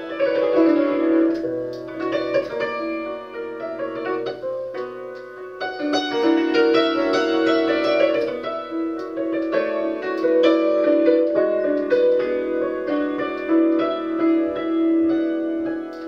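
Concert cimbalom, a 1987 Bohák, being played with hammers: quick runs of struck notes over long held notes.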